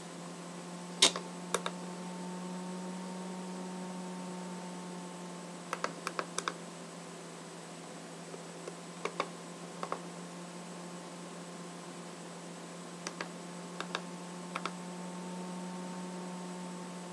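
Buttons on a Bliptronic 5000 LED synthesizer's key grid being pressed one at a time to enter a pattern: a scattered series of short clicks, some in quick clusters, over a steady low hum.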